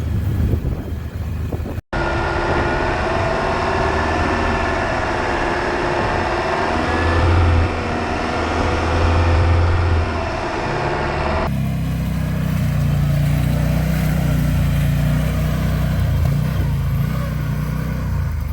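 Gas-powered UTV engine running as the side-by-side is driven. Its pitch wavers with the load, and the sound changes abruptly about 2 s and 11.5 s in.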